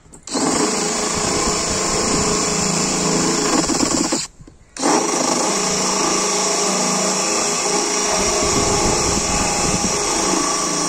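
DeWalt DCD777 20V brushless cordless drill running at its higher speed, grinding a rotary rasp bit into plywood; it stops briefly about four seconds in, then starts again. At this speed the rasp bounces in the wood.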